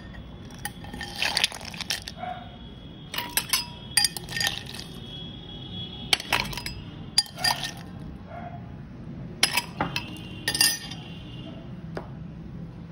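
Ice cubes dropped one at a time into a stemmed drinking glass. Each one clinks against the glass, which rings briefly. There are about seven drops.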